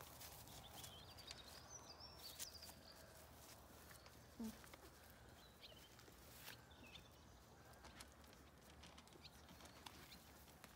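Near silence with faint bird chirps now and then and light scattered taps and rustles. About four and a half seconds in there is one brief, low, tone-like sound.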